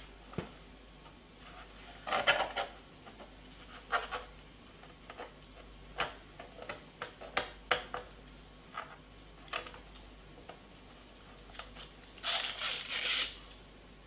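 Handling of a computer monitor and its packaging: scattered light plastic clicks and knocks, with a longer rustle about twelve seconds in.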